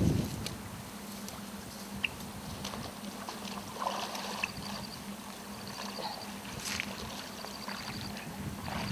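Faint rustling and scattered light clicks of a person moving through creekside grass and brush, over a low steady hum, with a brief low rumble at the very start.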